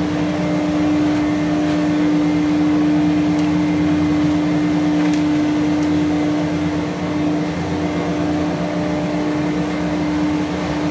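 Chairlift terminal machinery running with a steady, loud hum: one constant low tone over a lower mechanical drone.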